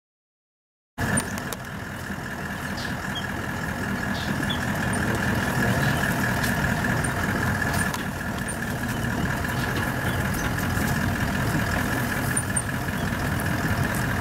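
A vehicle engine idling steadily, starting abruptly about a second in, with a steady high-pitched hum over the low engine sound.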